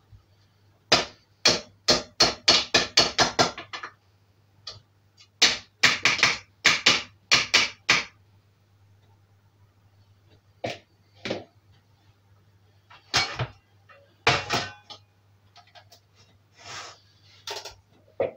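A spoon knocking and scraping against a stainless steel mixing bowl while stirring stiff fruit cake mixture. The sharp clanks come in two quick runs of about four a second in the first eight seconds, then as scattered single knocks.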